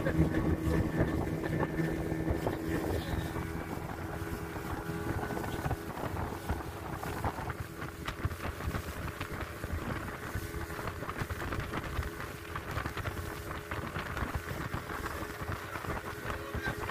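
A 40-horsepower outboard motor running steadily as the boat cruises, with water rushing along the hull and wind buffeting the microphone. The engine's low hum drops back a little about five seconds in.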